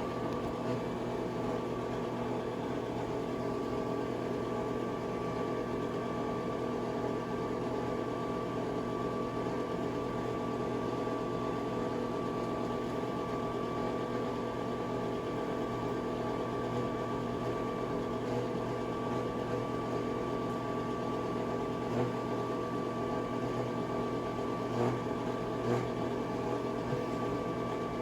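Bathroom exhaust fan running with a steady whirring hum and a faint whine in it, with a few brief taps in the last third.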